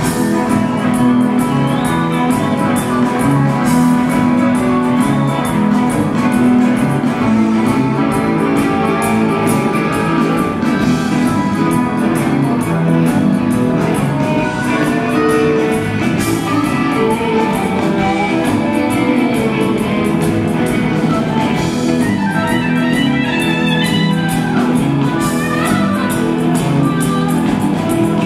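A live rock band playing a jam, with electric guitars over a steady drum beat.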